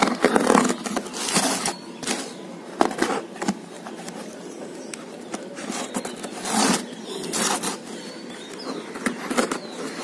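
Small knife blade scraping and slicing through plastic packing tape on a cardboard box, in short irregular strokes.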